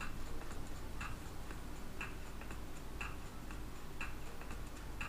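Clock ticking, about one strong tick a second with a fainter tick between: a countdown-timer sound effect marking time to answer a quiz question.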